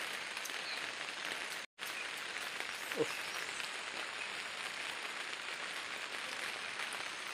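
Steady rain falling on a greenhouse roof, an even hiss that cuts out for a moment about two seconds in.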